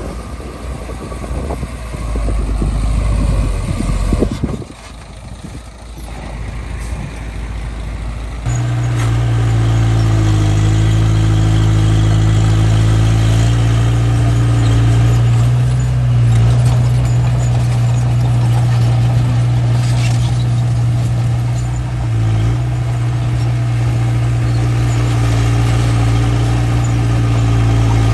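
Bulldozer's diesel engine running as it works. About a third of the way in, a louder, steady engine drone with a low, even pitch takes over and holds, dipping briefly a couple of times.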